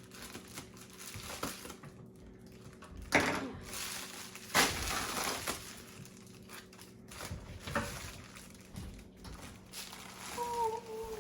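A cardboard package being opened and handled: rustling and crinkling of cardboard and packing material, with louder scraping or ripping about three seconds in and again for about a second from four and a half seconds in.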